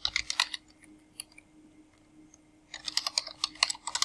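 Computer keyboard typing: a quick run of keystrokes, a pause of about two seconds, then another run from about three seconds in.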